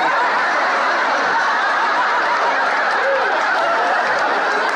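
Sitcom studio audience laughing: one sustained crowd laugh of many voices at once, holding steady throughout.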